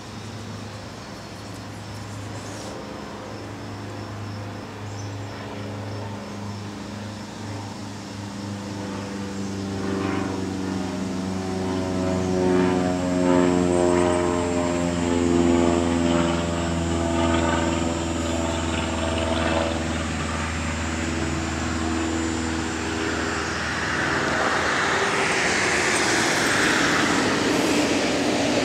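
A large engine droning as it passes. It grows louder to a peak about halfway through while its pitch falls slowly. Near the end a broad rushing noise takes over.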